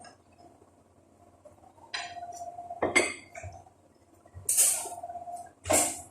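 Kitchen utensils and dishes clinking and knocking, about five separate strikes, the loudest about three seconds in and near the end, some leaving a short ring.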